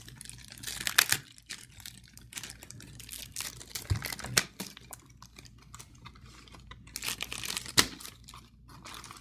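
Clear plastic wrap being peeled and torn off a portable speaker, crinkling unevenly with sharper crackles about a second in, around four seconds and near eight seconds.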